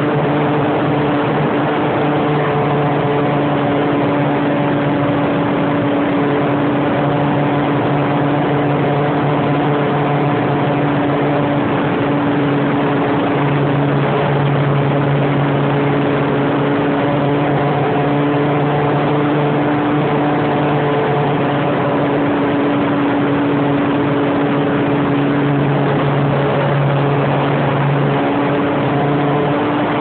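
A light propeller aircraft's engine running steadily in flight, a constant drone that holds its pitch, over heavy rushing air noise.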